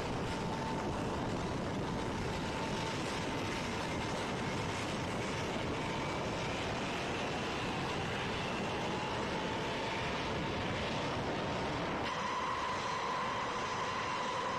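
B-52 bomber's jet engines starting and running: a steady rushing noise with faint whining tones that climb slowly in pitch as the engines spool up, changing about twelve seconds in to a stronger, steadier whine.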